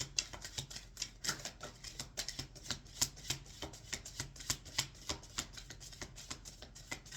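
Tarot cards being shuffled by hand: a quick, steady run of light card slaps and clicks, several a second, that stops just before the end.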